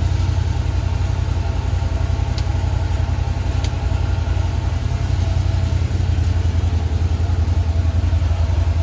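Can-Am Defender side-by-side's engine idling steadily.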